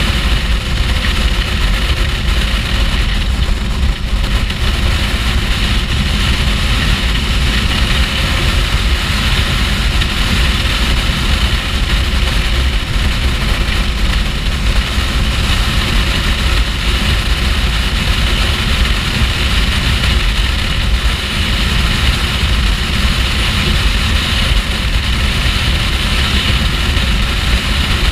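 Kawasaki Ninja H2's supercharged inline-four running steadily at motorway cruising speed, with wind buffeting the microphone as a constant low rumble.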